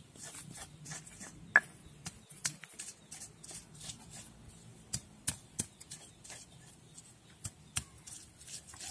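Stone pestle tapping and grinding in a stone mortar (Javanese cobek and ulekan), crushing shallots, garlic and red chillies into a spice paste: irregular sharp taps, a few a second, with one louder knock about one and a half seconds in.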